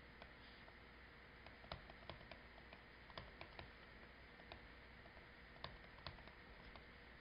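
Near silence: a low steady hiss with faint irregular clicks and taps of a pen on a writing surface as a diagram is drawn.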